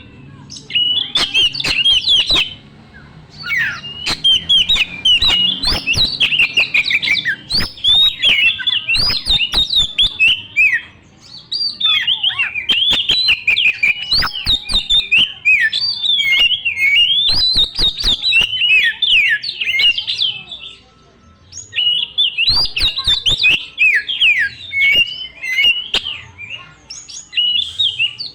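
Oriental magpie-robin singing a loud, fast, varied song of whistled phrases mixed with sharp clicking notes. It comes in long runs, broken by short pauses about 3, 11 and 21 seconds in.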